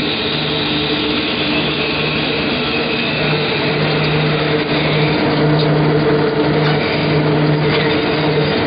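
JS500 twin-shaft compulsory concrete mixer and its belt conveyor running: a steady mechanical hum with a constant low tone, unchanging throughout.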